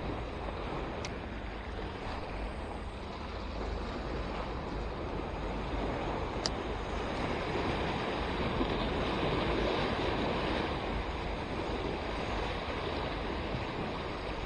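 Sea waves washing and breaking in a steady rush that swells and eases slowly, with wind rumbling on the microphone. Two faint clicks, about a second in and again near the middle.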